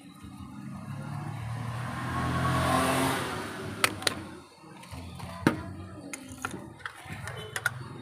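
A motor vehicle passing by: engine and tyre noise swells to a peak about three seconds in, then fades. After that come a handful of sharp clicks and taps as the plastic fan-motor parts and a screwdriver are handled.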